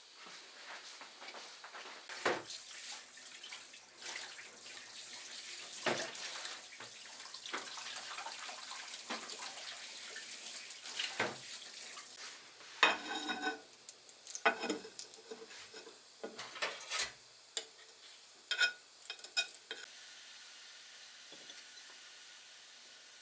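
Kitchen work: a steady hiss with a few knocks for about twelve seconds, then a run of sharp clinks and knocks of dishes and utensils, which stops about twenty seconds in.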